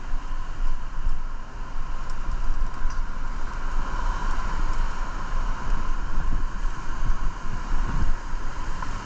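Riding an electric bike on a dirt trail, with wind rumbling on the microphone and a steady mid-pitched whine from the e-bike's motor that grows a little stronger around the middle.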